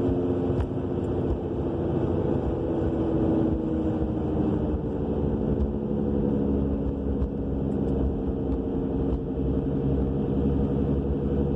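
A 2000 Subaru Legacy AWD driving, heard from inside the cabin, with a roaring drone from the rear end: a steady hum of several tones over road rumble, drifting lower around the middle and then rising again. The drone appeared after the rear brakes, calipers and rotors were replaced, and its cause is unknown; the wheel bearing is also new.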